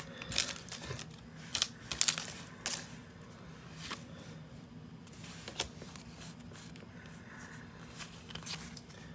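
Foil wrapper of a Pokémon booster pack crinkling sharply in the first few seconds as the pack is opened, then softer rustles and ticks as the trading cards are slid out and handled.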